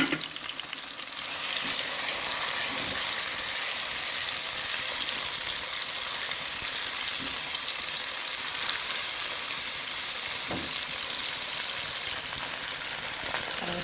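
Onion, tomato, garlic and ginger frying in hot oil in a pot: a steady sizzle that grows louder about a second in, as the onion goes in, with a few light knocks of stirring.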